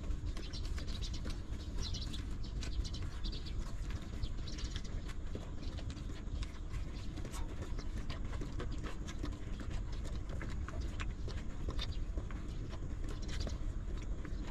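Newborn puppies suckling at their mother: quick, irregular wet clicks and smacks, with short high squeaks in the first few seconds and again near the end, over a steady low rumble.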